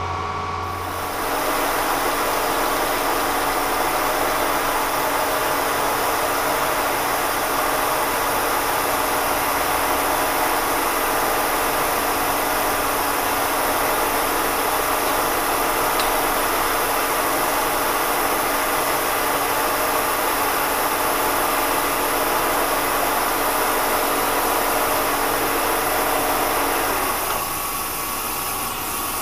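Vertical milling machine running, its extra-length end mill cutting a slot, under the loud steady hiss of a mist coolant nozzle blowing air and coolant onto the cutter, with a steady hum of machine tones beneath. The hiss steps up about a second in and drops back near the end.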